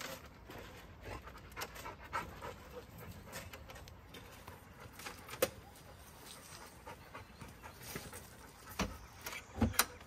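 A dog panting, with scattered light clicks, a sharp click about halfway through and two louder knocks near the end.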